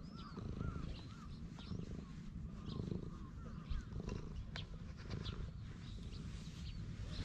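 Tabby cat purring steadily as a low, pulsing rumble, close up while being stroked, with fur rustling under the hand.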